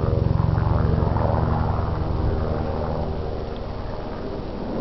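Helicopter in flight: the fast, even thudding of its rotor blades over a steady engine tone, loudest at first and easing off over the last couple of seconds as it moves away.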